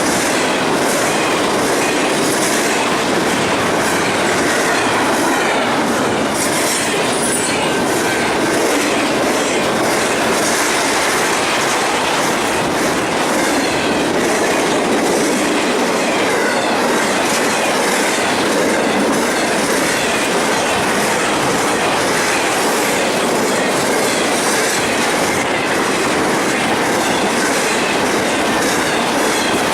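A train rolling past at close range: steady wheel-on-rail noise with a clickety-clack of wheels over the rail joints. A brief high-pitched wheel squeal comes about seven seconds in.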